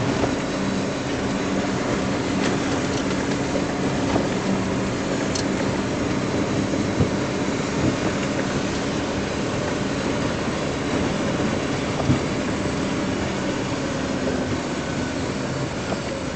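Steady engine and road noise heard inside the cab of a moving vehicle, with a few short clicks and knocks.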